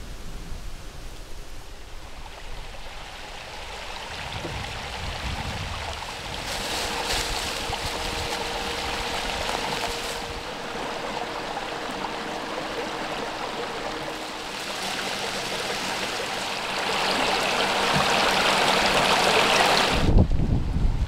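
Small woodland brook running, a steady rush of water that grows louder in the last few seconds. Wind buffets the microphone in the final second.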